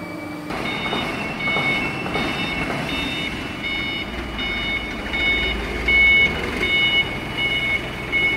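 Guillotine shearing machine's electronic warning beeper sounding a repeated high beep, about three beeps every two seconds, over the steady running noise of the machine. The beeping starts about half a second in, and a low rumble swells up in the middle.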